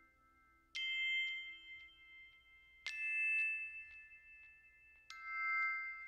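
Background music: three bell-like mallet notes, each struck about two seconds apart and left ringing as it fades.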